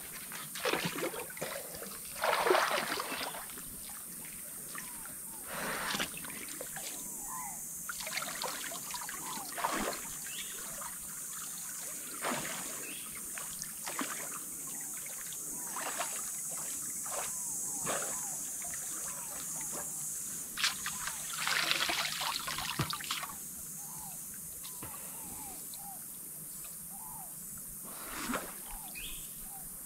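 Shallow river water trickling steadily, broken by irregular splashes and sloshes from people moving in the water, the biggest about two seconds in and again around twenty-two seconds in.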